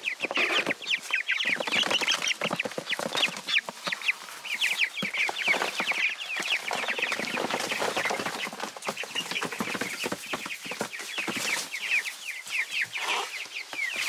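A flock of young meat chickens peeping constantly, many short, high, falling chirps a second. Scattered knocks and scrapes of the plastic bin they are in come through as it is tipped over onto the grass.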